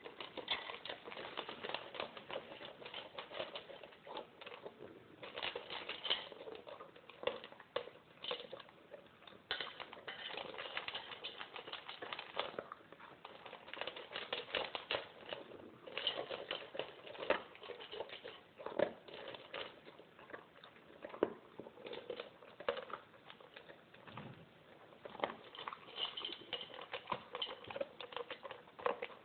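Alaskan Malamute eating dry kibble from a stainless steel bowl: continuous crunching and chewing, with quick irregular clicks and rattles of kibble against the metal bowl.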